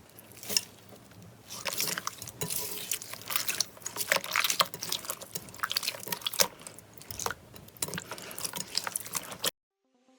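Slime being squished and pressed by hand, a dense run of wet, sticky clicks and crackles that cuts off abruptly near the end.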